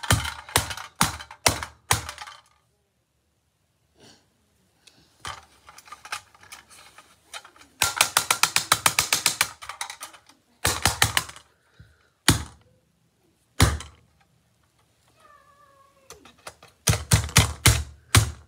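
Screwdriver knocking and prying at a small red toy car: bursts of quick, hard clicking taps. There is a fast run of about eight taps a second near the middle, several single knocks after it, and another run near the end.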